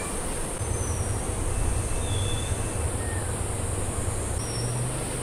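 Steady high-pitched insect chorus, with a low rumble underneath and a few brief faint chirps.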